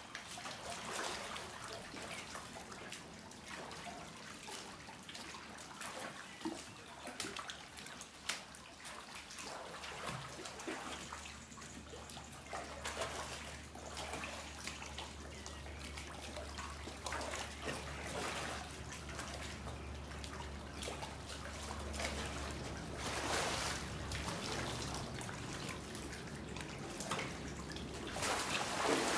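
Water splashing and trickling in a crowded crocodile pool, with many small splashes throughout. A low steady hum comes in about a third of the way through and fades near the end, and the splashing grows louder near the end.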